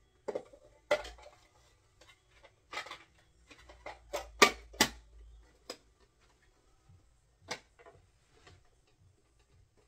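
Small hard objects being handled and set down, such as toys on a shelf: irregular clicks and knocks, with the sharpest few clacks about four to five seconds in.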